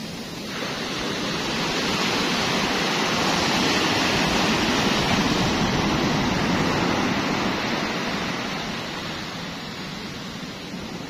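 Sea water rushing: a wash of surf that swells over a few seconds, then fades away.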